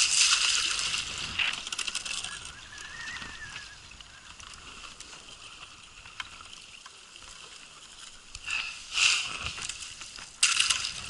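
Ice crunching and scraping as it is cut through: loud in the opening seconds, fading to a quieter grinding, then two more short loud bursts near the end.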